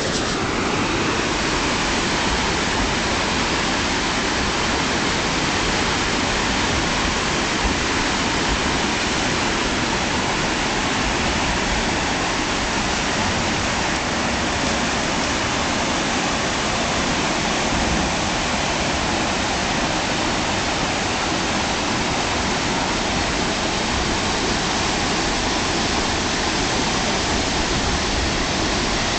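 River rapids: whitewater rushing steadily, a dense unbroken roar of water.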